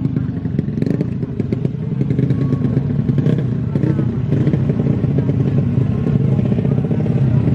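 Small underbone motorcycle engine running at a steady pitch, with a few sharp clicks in the first second or two.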